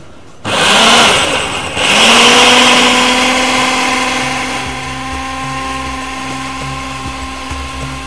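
Electric food chopper grinding raw beef mince with onion, green chillies and coriander. A short pulse of the motor is followed by a steady run with a humming whine, loudest at first and settling lower as the mince breaks down.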